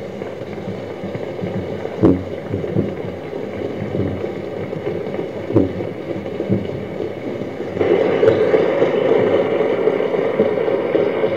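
Audience applause breaking out as the speech closes, a dense patter of claps that swells louder about eight seconds in.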